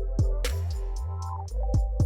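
Background electronic music with a steady beat: deep bass kicks that drop in pitch, ticking hi-hats and held synth notes.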